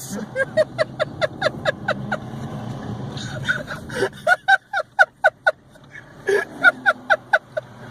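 Hard, breathless laughter in quick repeated gasps, about four or five a second, in two long fits, over the car's engine and road hum inside the cabin.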